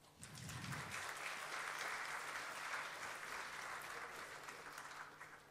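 Audience applauding. The clapping builds quickly at the start and dies away near the end.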